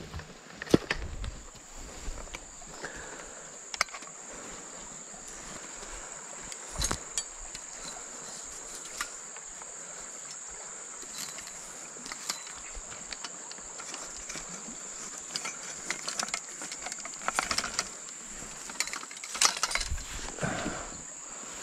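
Steady high-pitched insect chorus, with scattered clicks and rustling that grow busier near the end.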